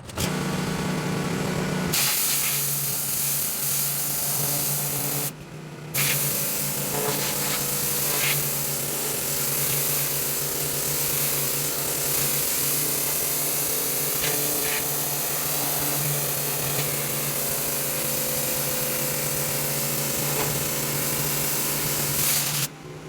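3400 PSI pressure washer jetting water onto a dirty pad: a loud, steady hiss of spray over the hum of the machine. It breaks off briefly about five seconds in and stops near the end.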